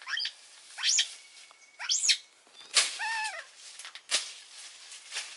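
Baby monkey squealing in short, high calls about once a second, each sweeping up and down in pitch, with one longer wavering cry about three seconds in.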